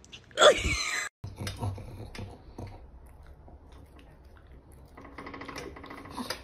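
A cat gives one loud meow that falls in pitch. Then a pug at a table of food makes faint small clicks and snuffles, with a faint whine starting about five seconds in.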